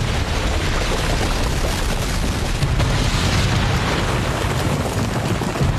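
Anime sound effect of an earth-element jutsu: a continuous heavy rumble with rushing, crackling noise as ground and sand surge up into spikes.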